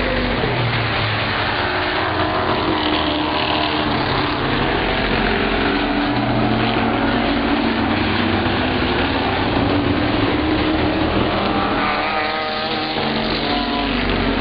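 A pack of street stock race cars at speed on a short oval, several engines heard at once, revving up and easing off as they go through the turns.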